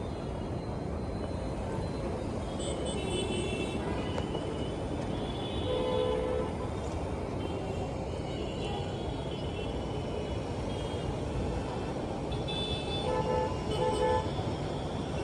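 Street traffic running steadily, with short car horn honks about three seconds in, again around six seconds, and several in quick succession near the end.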